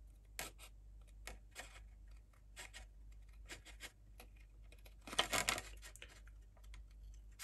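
Straight scissors snipping through a thin, clear vacuum-formed plastic slot car body shell: a faint run of small crisp clicks, with a quicker cluster of snips about five seconds in.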